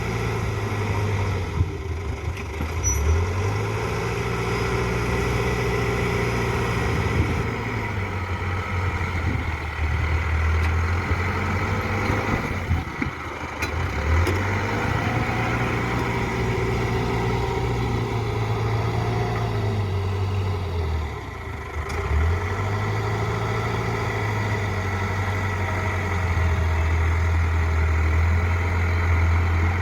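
Backhoe diesel engine running, its pitch dropping and rising again a few times as the revs change while it works.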